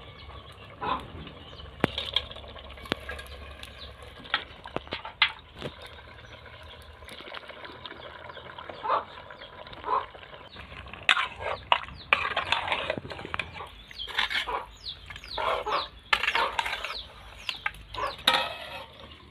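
Chickens clucking, with short calls crowding together in the second half. A few sharp clicks sound in the first half.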